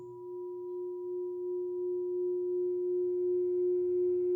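A single sustained ringing tone, slowly swelling louder with a gentle pulsing wobble.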